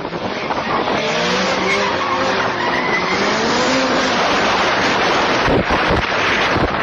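A car's tyres skidding and squealing while its engine runs, the engine pitch wavering up and down, with a couple of low thumps about five and a half seconds in.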